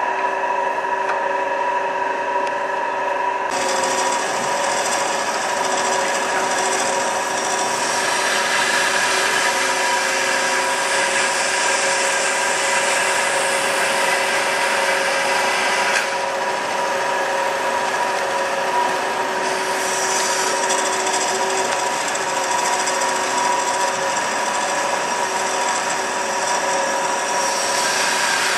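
Amada HA250W hydraulic horizontal band saw running its automatic cutting cycle: a steady machine hum, joined about three seconds in by the hiss of the blade cutting through bar stock, which continues.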